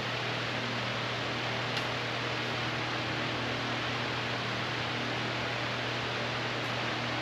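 Steady background hiss with a constant low hum underneath, and a faint click about two seconds in.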